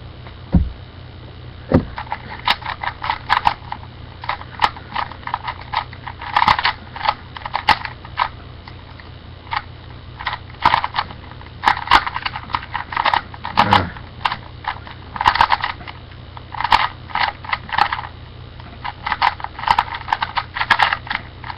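Original Rubik's Cube being turned rapidly in a speedsolve: plastic layers clicking and clacking in fast flurries broken by short pauses.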